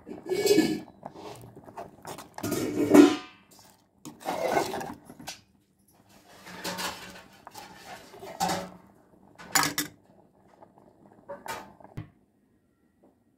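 Steel slotted ladle scraping and knocking against a metal cooking pot as it scoops out flour dumplings and pulses: about seven short clattering strokes spread unevenly, dying away near the end.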